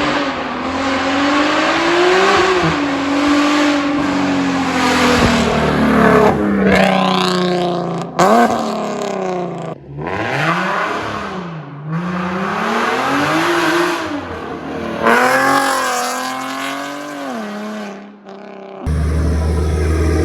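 Nissan 370Z's 3.7-litre V6 (VQ37VHR) through an exhaust with test pipes, accelerating hard. Its pitch climbs and drops repeatedly through revs and shifts, broken by a few abrupt cuts. Near the end there is a deep, steady low rumble.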